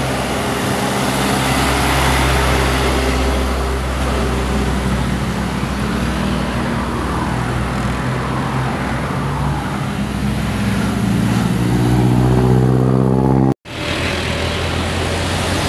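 A heavy vehicle's diesel engine pulling up a steep grade under load, with road traffic around it. Its note rises steadily in pitch over the last few seconds. About 13 seconds in, the sound cuts out abruptly for an instant.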